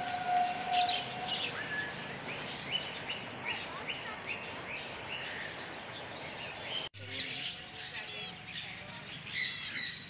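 Many birds chirping and calling together, with a run of short, repeated rising calls about twice a second in the first half. The sound drops out for an instant about seven seconds in, then the chirping grows busier.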